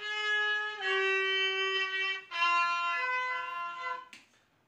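A violin played by a young child: three long bowed notes, each a step lower than the one before, that stop about four seconds in.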